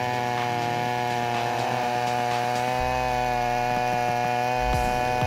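Chainsaw engine running steadily, with a few low thumps near the end.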